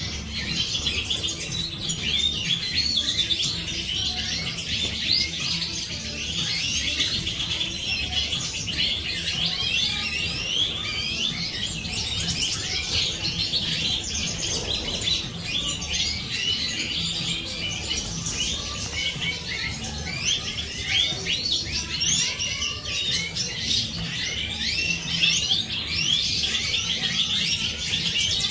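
A flock of Siberian goldfinches twittering and chirping, many birds calling at once in a dense, continuous chatter over a steady low hum.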